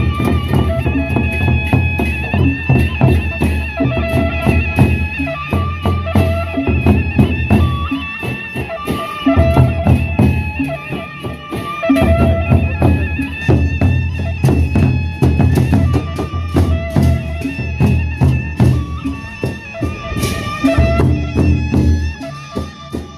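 Gendang beleq ensemble playing: large double-headed barrel drums beat fast, dense patterns with cymbals over them, under a held melody line that moves from note to note. The deep drum beats drop out briefly a few times and come back in.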